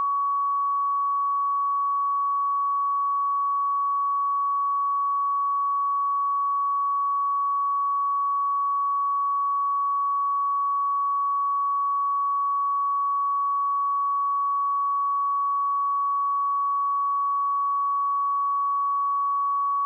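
A pure 1125 Hz sine-wave test tone held at one steady pitch and level.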